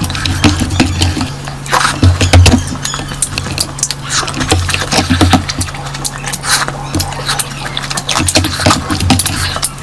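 Close-miked eating: wet chewing and lip smacking with many quick sharp clicks and repeated low thuds, over a steady low hum.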